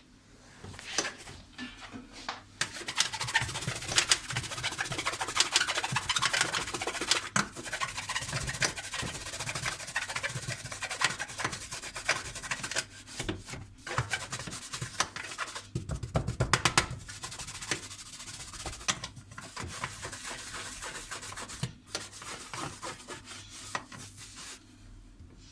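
Scrubbing and rubbing on dishwasher parts, with many small clicks and knocks of the parts being handled, and a cluster of heavier knocks about two-thirds of the way through.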